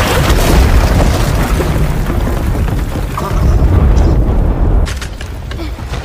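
Film sound of a booby-trap mine exploding inside an underground dugout, with the bunker caving in: a loud, deep rumble that swells again about three seconds in, then eases into falling debris cracking and clattering near the end.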